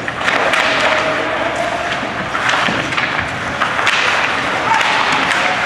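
Ice hockey play on a rink: skates scraping the ice, with sticks and puck giving repeated sharp knocks and thuds.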